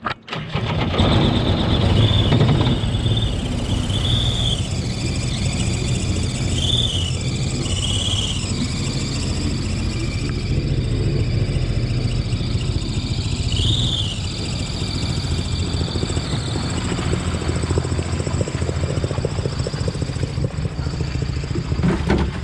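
Jet boat engine starting and then running steadily, with a few short high squeals over it.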